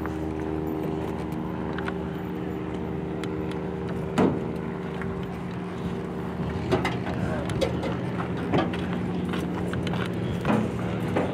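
An engine running at a steady idle, with a few short knocks and bits of background voices from about four seconds in.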